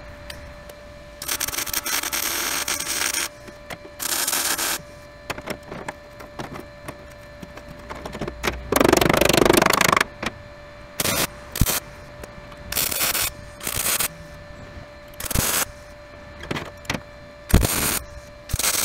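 MIG welder laying a series of short tack welds, crackling bursts of about half a second each, joining a new steel patch to the rusted front fender mount of a 1952 International Harvester truck. In the first half there are longer bursts of wire-brushing on the steel.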